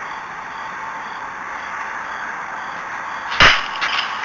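A baseball bat hitting a pitched ball: one sharp crack about three and a half seconds in, over a steady background hiss.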